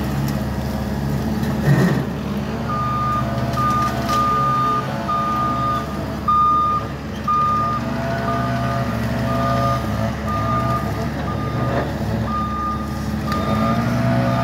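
Diesel engine of a compact track loader running steadily. From about three seconds in its backup alarm beeps, about once a second, as the loader reverses. A short loud thud comes near two seconds in.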